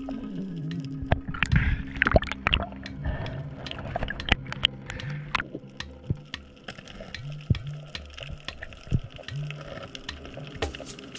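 Underwater sound from a spearfishing dive: water noise with many sharp clicks and crackles scattered throughout, under background music with a low bass line that comes in steadily from about halfway.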